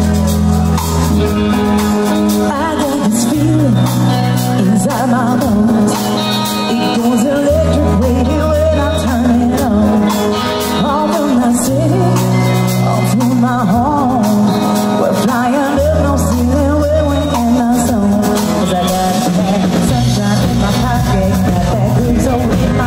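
Live band playing a song, with a woman singing lead over electric guitars, keyboard and drums. A deep bass line holds each note for a few seconds before moving to the next.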